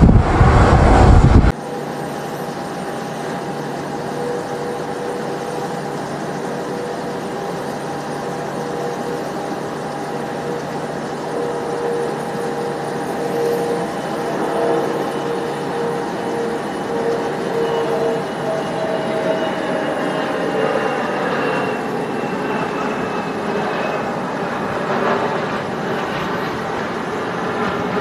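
Jet airliner (C919, CFM LEAP-1C turbofans) heard from a distance while landing: a steady rush of engine noise with faint whining tones that slowly fall in pitch. It opens with a loud rush of takeoff jet noise and wind on the microphone, which cuts off abruptly after about a second and a half.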